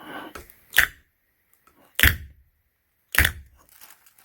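Three sharp plastic knocks, about a second apart, as the handle is worked off a submersible pond pump's motor housing, with light handling rustle at the start.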